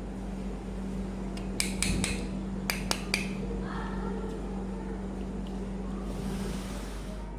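Hard plastic toy parts clicking and clacking as they are handled, in a cluster of sharp clicks during the first few seconds, over a steady low hum.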